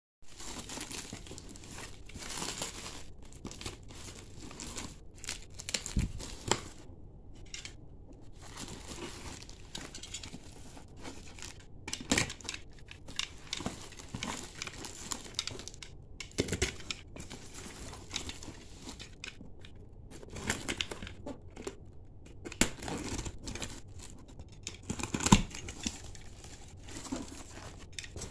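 Clear plastic wrap crinkling and tearing as it is pulled off a cardboard box, with irregular rustling and sharp knocks of the cardboard being handled, the loudest knock near the end.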